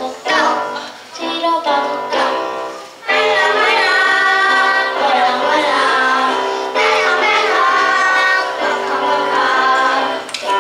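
A child singing a song into a handheld microphone, with musical accompaniment underneath; the singing is broken up at first and runs on steadily from about three seconds in.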